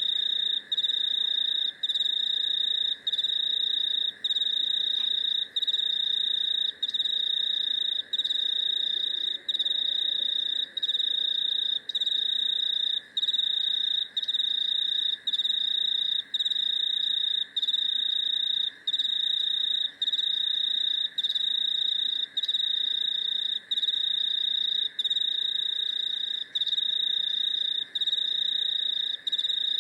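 Cricket chorus: one cricket's continuous high trill, broken by brief pauses every second or so, over a fainter, lower steady buzz of more insects.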